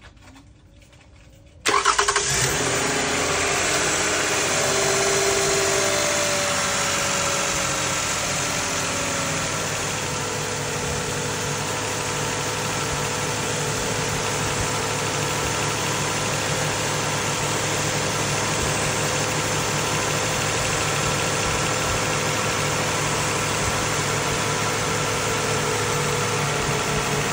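Toyota Sienna 3.5-litre V6 engine starting about two seconds in, then running at a fast idle that drops and settles over the next several seconds into a steady idle, on a test run after new spark plugs were fitted.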